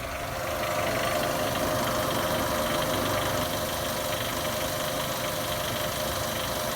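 Nissan Almera G15 engine idling steadily, with a rattle like a loose nut somewhere in the engine. The owner suspects the hydraulic lash adjusters, possibly in the first cylinder.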